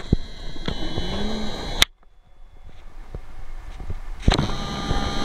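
Steady machine hum with a few high whining tones over room noise, like a ventilation fan running; it cuts out abruptly about two seconds in and fades back up, with a single click a little before the end.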